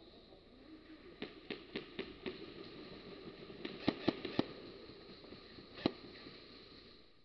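A series of sharp clicks: a run of five at about three a second, then a tighter cluster of four, and one more near the end, over a faint background hum.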